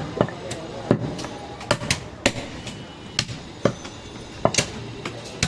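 Butcher's cleaver chopping goat meat with sharp, irregular strikes, about a dozen in a few seconds.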